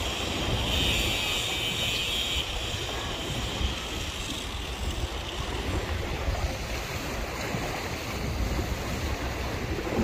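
Wind buffeting the microphone over the sound of the sea washing against a concrete breakwater, with a heavy, uneven low rumble from the gusts.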